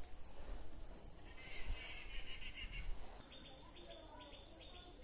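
Steady high-pitched drone of an insect chorus, with bursts of rapid chirping about a second and a half in and again from about three seconds on. Low rumble in the first three seconds.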